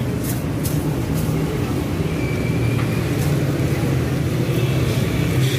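A steady low mechanical hum runs throughout, with a few light clicks near the start and about three seconds in.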